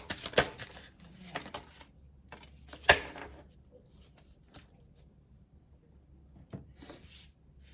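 Tarot cards being shuffled and handled: a run of crisp card flicks and snaps over the first three seconds, the sharpest about three seconds in, then only faint occasional rustles.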